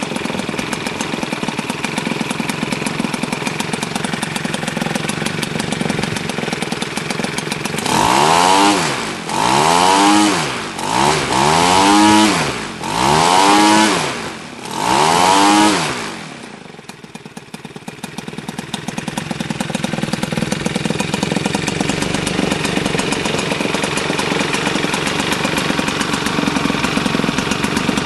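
Zenoah G62 62 cc two-stroke petrol engine driving a 23x8 propeller during its break-in run: running steadily, then revved up and down five times about eight seconds in, dropping to a low idle and climbing back to a steady speed.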